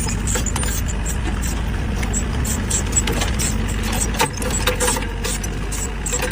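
An engine running steadily, a low rumble with scattered clicks and knocks over it.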